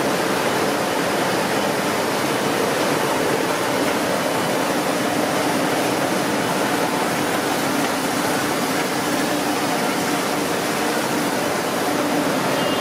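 Steady factory machinery noise: an even, continuous hiss with a faint hum under it and no distinct strokes or rhythm.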